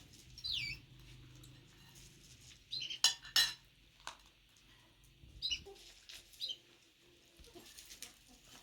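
Small birds chirping a few times in short downward-sliding calls, and about three seconds in, two sharp clinks of dishes or utensils, the loudest sounds here.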